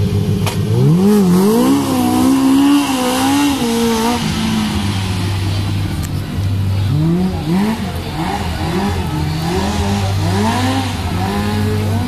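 Remote-control car's engine revving up and down, in two spells of rising and falling pitch over a steady low hum, with the hiss of rain on wet tarmac.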